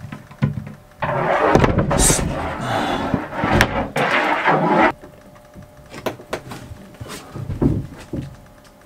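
A wooden cabin floor panel is pulled up by its fitting and lifted out: about four seconds of wood scraping and knocking, then quieter scattered clicks and taps as it is handled.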